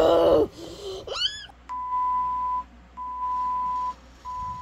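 Three censor bleeps, each a steady high-pitched tone about a second long with short gaps between, blanking out swear words. Before them, a high, squeaky voice cries out twice.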